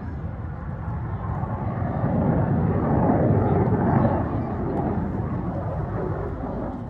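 BAE Hawk 127 jet trainer's Rolls-Royce Turbomeca Adour turbofan as the jet flies past, its rushing jet noise swelling to its loudest about three to four seconds in and then fading.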